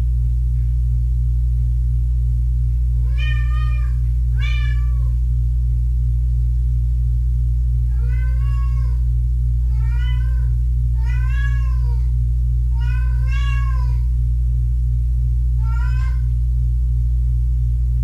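Kittens meowing: about eight short, high meows that rise and fall in pitch, starting a few seconds in and spread over the next dozen seconds. A loud steady low hum runs underneath.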